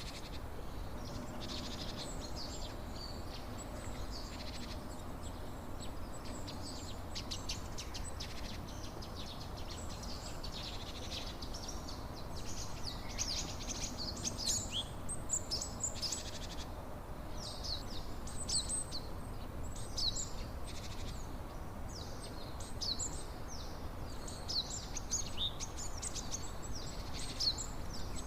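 Birds singing, with many short high chirps in quick runs, over a steady rush of water.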